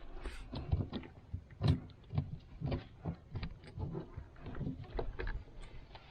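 Irregular knocks and clunks, several a second, of gear being handled and bumped against the hull of a small aluminium boat.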